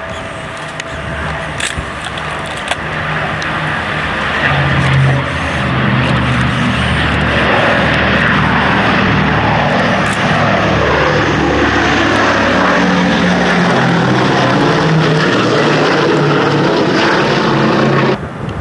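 Boeing B-17 Flying Fortress's four Wright Cyclone radial piston engines droning on a low pass overhead. The sound swells about four seconds in and its pitch slides down as the bomber goes by, then cuts off abruptly near the end.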